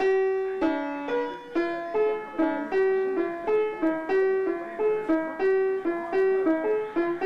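Piano played one note at a time by a young child with his fingers, picking out a simple melody in the middle register; the notes come a little faster after the first few seconds, each ringing briefly before the next is struck.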